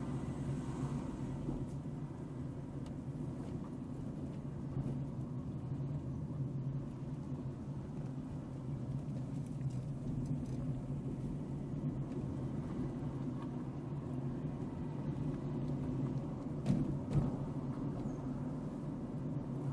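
A car driving slowly, its engine and tyres making a steady low hum, with a couple of brief knocks near the end.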